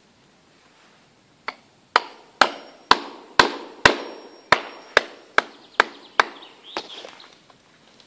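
A tool striking hard at the trunk of a downed tree: about a dozen sharp blows, roughly two a second, starting about a second and a half in and stopping around six seconds. A few fainter knocks and crackles follow near the end.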